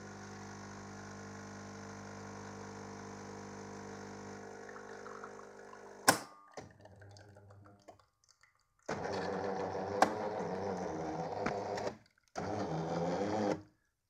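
Krups Orchestro 889 espresso machine's pump running steadily while it brews espresso, with a sharp click about six seconds in. After a short pause the pump runs again in two louder stretches that stop abruptly near the end.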